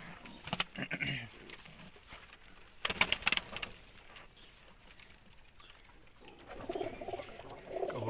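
Domestic pigeons cooing in a loft: a low call about a second in and more cooing near the end. A short burst of sharp clatter about three seconds in is the loudest sound.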